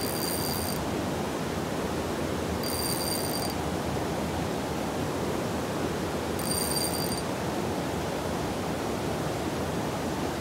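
Steady rush of river water flowing past. A high-pitched buzzy trill sounds three times over it, each under a second long, about every three and a half seconds.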